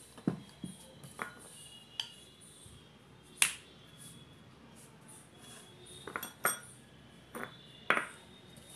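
Wooden rolling pin clacking and knocking against a stone rolling board as stuffed dough is rolled out: scattered sharp clicks, the loudest about three and a half seconds in, with a cluster about six seconds in and another near the end.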